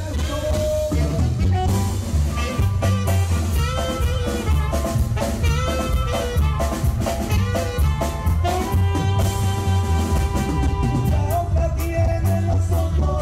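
A live regional Mexican band plays an instrumental passage: a saxophone carries the melody over drum kit, bass and keyboard with a steady, quick dance beat.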